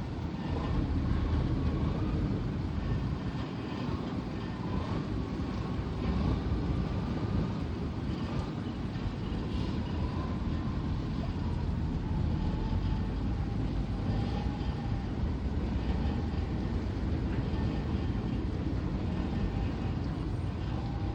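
Tugboat engine running steadily under load: a continuous low rumble with a faint wavering whine above it.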